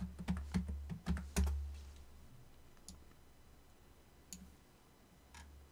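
Typing on a computer keyboard to enter a stock code: a quick run of key taps in the first second and a half, then two single clicks, over a low hum.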